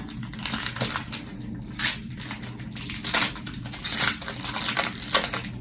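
Foil Pokémon booster pack wrapper crinkling as it is handled and opened, in a run of irregular rustles.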